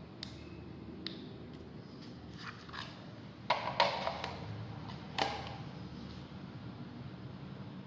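A few sharp clicks and knocks of hard objects being handled, with a brief clatter about three and a half seconds in and one more knock about a second later.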